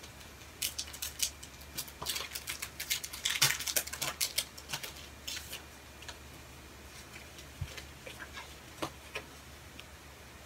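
Crinkling and rustling of a clear plastic sleeve and paper cards being unwrapped and handled, dense crackles in the first half, then only a few light ticks. A faint steady hum from a computer fan runs underneath.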